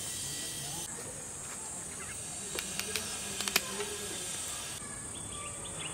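Pruning shears snipping a dragon fruit off its stem: a quick run of sharp clicks about halfway through, over a steady high hiss.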